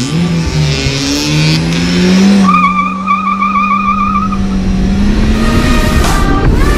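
Car engine revving up and then held at high revs for several seconds, with a warbling high squeal over it for about two seconds in the middle. Music comes in near the end.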